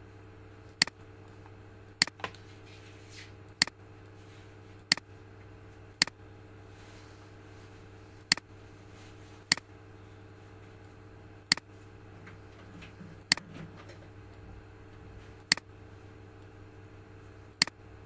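Computer mouse clicking: about eleven sharp single clicks spaced irregularly, one to two seconds apart, over a steady low hum.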